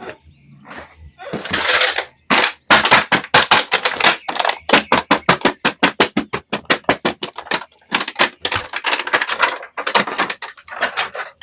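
Hands handling a toy and its packaging: a rapid, uneven run of sharp clicks and crackles, several a second, beginning with a rustle about a second and a half in.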